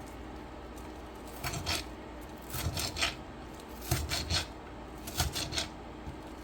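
Kitchen knife dicing onion on a cutting board: short groups of two or three quick chops, a group about every second.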